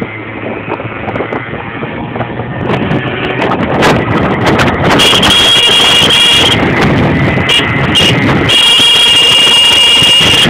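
A small scooter engine runs with a steady hum. From about three seconds in, loud wind buffeting and cloth flapping against the microphone take over, with a high steady tone that comes and goes in the second half.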